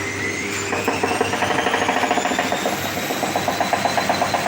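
Drean washing machine spinning up: the motor whine rises in pitch while a fast, rhythmic mechanical noise comes in about a second in. This is the abnormal spin noise the technician is 99% sure comes from the 6204 drum bearings moving loose in the tub's aluminium housing; a cracked arm of the drum's spider support is his other suspect.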